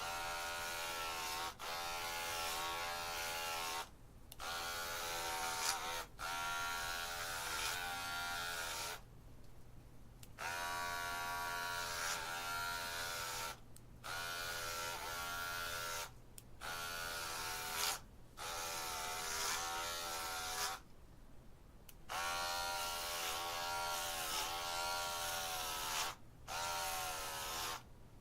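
Electric hair clippers buzzing in stretches of a few seconds, broken by short gaps about nine times, the pitch of the buzz wavering a little.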